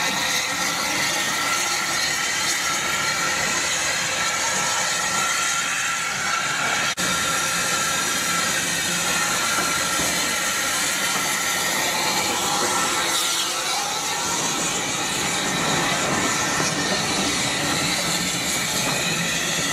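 Small saddle-tank steam locomotive hissing steam steadily as it runs slowly with a brake van, with a brief dropout about seven seconds in.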